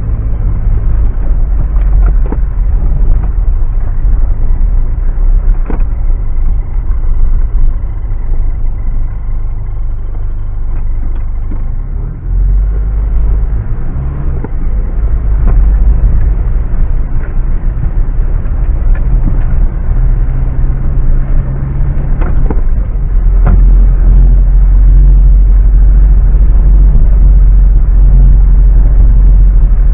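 Mitsubishi Pajero driven off-road: the engine running under load with a heavy low rumble, and occasional sharp knocks over rough ground. The engine note shifts about twelve seconds in, and the sound grows louder and steadier over the last six seconds.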